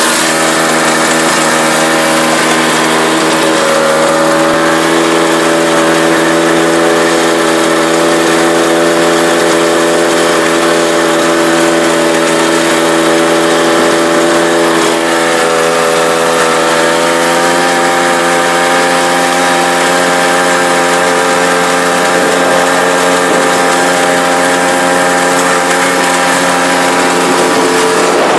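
Snowmobile engine running steadily while towing a sleigh over snow. Its pitch holds nearly level, rising slightly past the middle.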